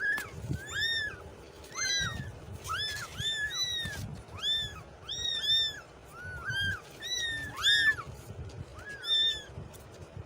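Kittens meowing repeatedly: about twenty short, high-pitched, rising-and-falling mews, many in quick pairs, with no pause longer than about a second.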